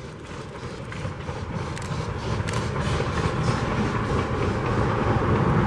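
Ferrovie della Calabria steam locomotive FCL 353, a narrow-gauge engine, running past with two coaches under heavy smoke, steadily growing louder. Scattered clicks from the wheels on the rails come through the steady sound.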